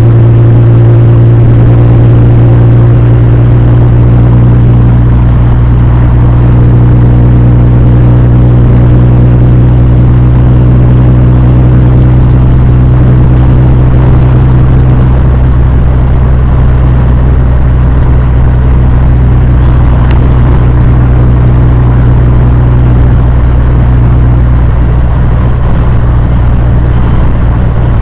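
Steady, very loud low drone of a vehicle driving, with engine hum and road noise.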